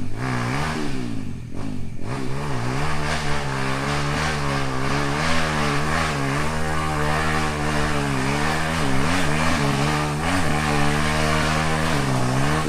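An off-road vehicle's engine revving, its pitch rising and falling over and over, with several sharp drops and pick-ups.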